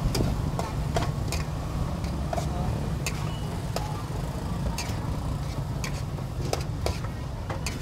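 Metal spatula clinking and scraping against a steel wok while stir-frying, with sharp, irregular clinks about once or twice a second over a steady low rumble.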